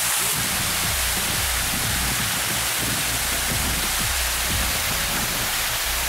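Steady rush of a waterfall, with background music playing underneath it.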